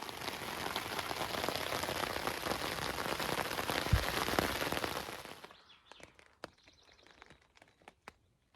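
Steady rain pattering, made up of many fine drop ticks. It fades out about five and a half seconds in, leaving a few scattered faint ticks.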